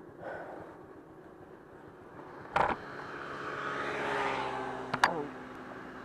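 A road vehicle's engine running, growing louder for a couple of seconds and then dropping in pitch about five seconds in, with a sharp knock about halfway through.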